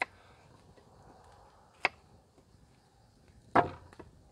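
Three sharp knocks about two seconds apart, the last the loudest.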